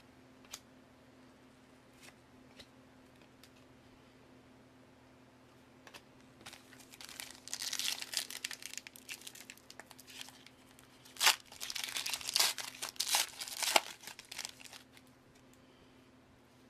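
Wrapper of a Panini Contenders football card pack being crinkled and torn open, in crackly bursts starting about six seconds in, with several sharp tearing snaps a few seconds later. Before it comes a few faint clicks of cards being handled.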